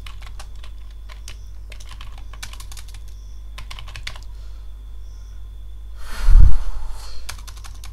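Computer keyboard typing in short runs of clicking keystrokes, over a steady low electrical hum. About six seconds in, a loud low thump with a brief rush of noise stands out above the typing.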